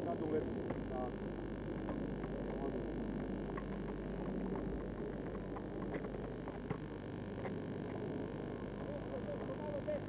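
Steady low electrical hum on an old camcorder recording, under a murmur of distant voices and a few faint knocks.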